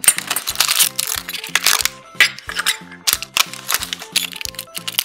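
Clear plastic packets crinkling and rustling as they are handled, with light clicks and clinks against a metal tin, over background music with a steady bass line.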